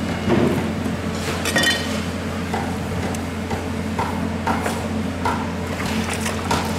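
Work-stall background noise: a steady low hum with scattered light clinks and taps, one small ringing clink about a second and a half in.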